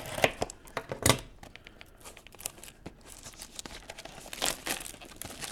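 Sealed boxes of trading cards being torn open by hand: packaging crinkling and ripping in irregular bursts, with a sharp rip about a second in.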